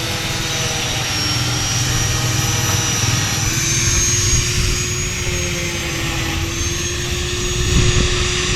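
Steady motor drone with a held, slowly wavering whine, like an aircraft or engine running.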